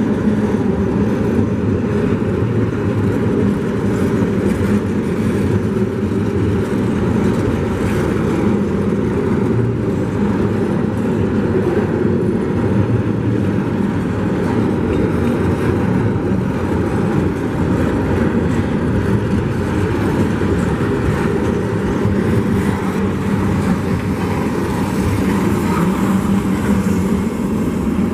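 A train rolling through a grade crossing: a steady, loud rumble of wheels on rail that begins to fade near the end.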